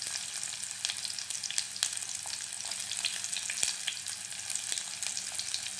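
Chopped onions sizzling in hot oil in a clay cooking pot, a steady hiss with scattered sharp crackles.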